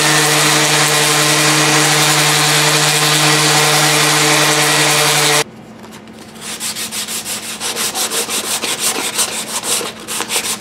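An electric power tool's motor runs with a steady hum and cuts off sharply about five seconds in. After a short pause, a walnut knife handle is sanded by hand with quick back-and-forth strokes, about three a second.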